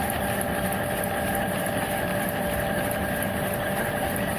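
Vintage lathe running on its self-contained belt drive: an electric motor under the bed turns the spindle through a V-belt and a flat belt, giving a steady, even whir with a faint hum. Pretty quiet.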